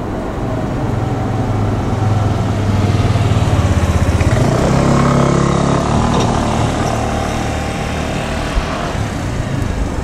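A road vehicle's engine passing close by: it grows louder to a peak about four to five seconds in, its pitch drops as it goes past, and it fades away.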